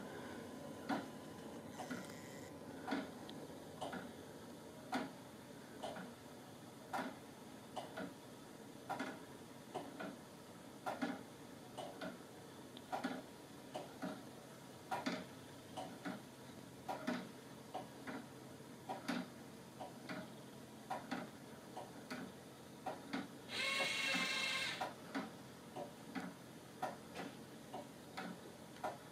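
Wooden-geared remontoir clock with a balance pendulum ticking quietly and steadily, a stronger tick about once a second. Once, about five seconds before the end, a short whir lasting about a second and a half, which fits the clock's small remontoir rewind motor.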